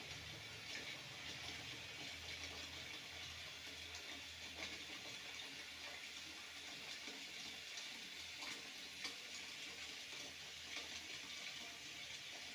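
Faint steady hiss with a low hum underneath and a few soft ticks.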